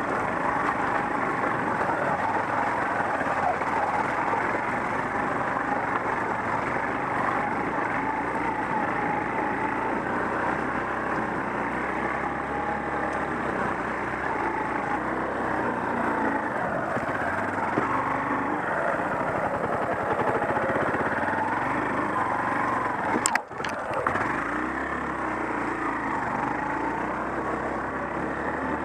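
Off-road trail motorcycle's engine running steadily while riding a rough dirt forest track, with jostling and rushing noise over it. The sound briefly drops out about three-quarters of the way through.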